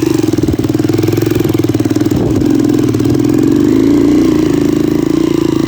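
Motorcycle engine running steadily under way, an even drone with rapid firing pulses and no clear revving up or down.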